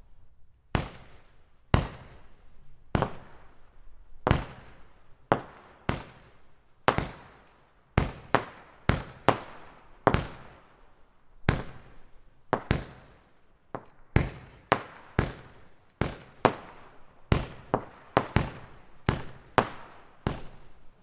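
Pyroland 'Herz und Himmel' 31-shot fireworks cake firing shot after shot, red crossette stars and silver glitter mines. Sharp reports come about once a second at first and then quicken to about two a second, each with a short fading tail.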